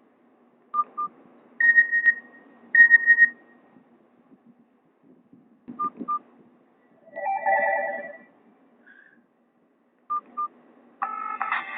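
Short electronic alert tones from a Nokia 216's small speaker, Nokia 5730 XpressMusic tones playing one after another with pauses between them. There are pairs of quick beeps, two longer high beeps, a lower warbling chime in the middle, and a louder multi-note tone starting near the end.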